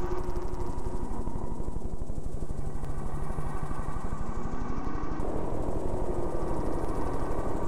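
Noise-music soundtrack: a loud, rapid, evenly pulsing mechanical drone with a steady high tone and slow rising tones over it. A further layer of noise joins about five seconds in.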